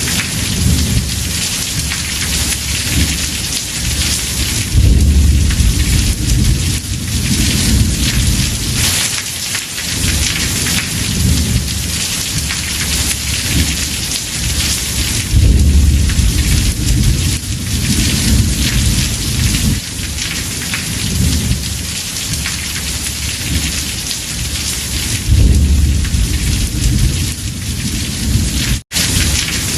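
Heavy rain falling steadily on a house roof, with low rolls of thunder swelling about every ten seconds. The sound drops out for an instant near the end.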